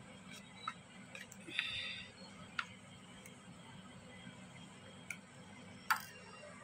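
Steel spoon stirring thick chutney in a stainless steel bowl: a few light clinks and a short scrape of spoon on bowl, the sharpest clink near the end, over a faint low hum.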